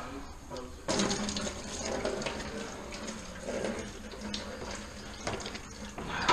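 Engine coolant pouring out of the cooling system into a bucket, a steady splashing stream that begins about a second in.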